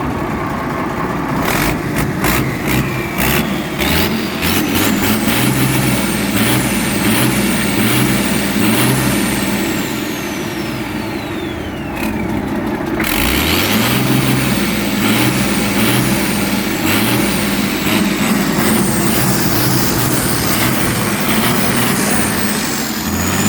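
Turbocharged diesel engine of a Star truck revved in quick repeated throttle blips, the turbo whistle rising with each blip. About halfway through the revving stops and the turbo whistle winds down in a long falling whine, then the blips and whistle start again.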